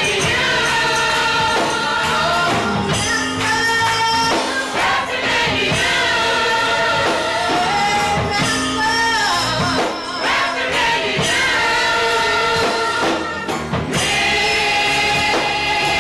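Gospel choir singing, led by a woman singing into a microphone, in long held notes that slide from one pitch to the next.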